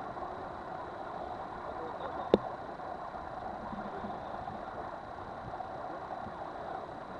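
Steady rushing noise of a boat under way, its motor and the water along the hull blending into an even wash. A single sharp click about two seconds in.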